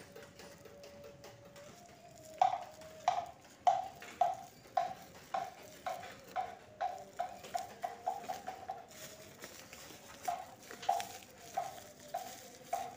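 A street bakso vendor tapping a spoon against a bowl, the ringing ting-ting that announces the vendor to the street: short ringing strikes at about two a second, quickening for a few seconds, pausing briefly, then resuming.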